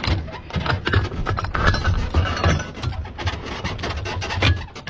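Hands handling an SPG-9 recoilless launcher and its round, with repeated metal knocks, clicks and rubbing as the launcher is reloaded.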